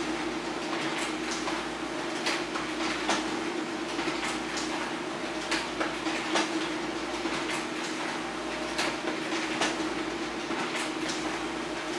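HP LaserJet Pro M402d laser printer running a two-sided print job: a steady motor hum with frequent irregular clicks and clacks as sheets are fed through.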